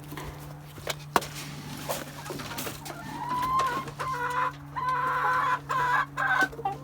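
Chickens calling in a series of drawn-out, pitched clucks starting about three seconds in, after a few sharp knocks and clicks.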